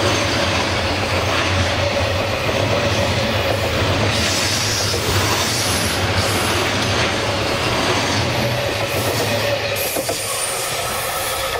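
Container wagons of a freight train rolling past close by on curved track: steady wheel-on-rail rumble and clatter with a held wheel squeal. The rumble eases as the last wagon passes about ten seconds in.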